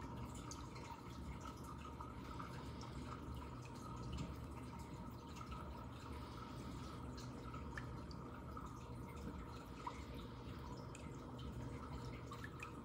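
Water trickling and dripping in a running reef aquarium, a continuous crackle of small drips and splashes over a steady low hum.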